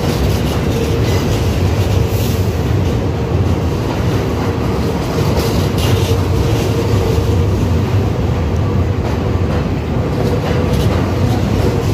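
A New York City Subway train rolling along the platform: a steady, loud rumble of wheels on rail with a faint steady motor hum and occasional light clicks.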